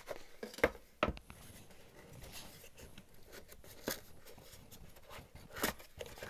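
Hands handling a cardboard box and its black foam insert: soft rustling and scraping of card and foam, with a few light knocks, one about a second in and another near the end.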